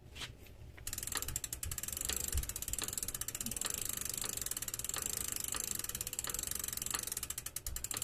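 Bicycle rear freehub clicking rapidly as the crank is backpedalled, starting about a second in, the chain running through a rag to spread freshly applied oil.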